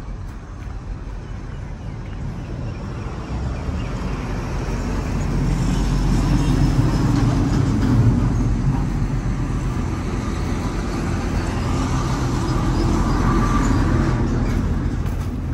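Motor vehicle traffic, engine and tyre noise that swells to a peak about halfway through, eases, then rises again near the end as vehicles pass.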